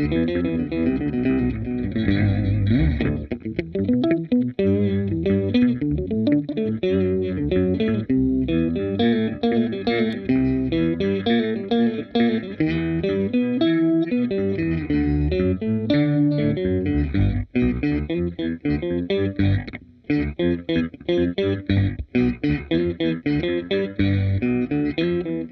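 Electric guitar played through a Seesaw V2 pitch-shifter pedal: a fast, continuous run of short picked notes with the pedal's shifted pitches layered on them, and brief breaks twice in the second half.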